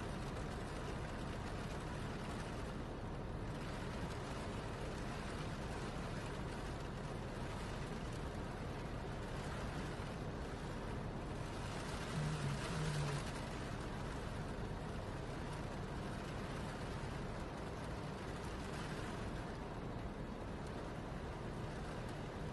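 Steady noise of a cyclone storm: wind and seawater surging through a flooded street, with a short louder low sound about twelve seconds in.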